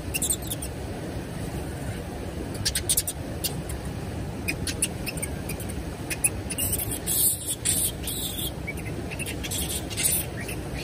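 Steady rushing outdoor noise, with scattered sharp high ticks and clicks that come in clusters about three seconds in, around seven to eight seconds, and again near ten seconds.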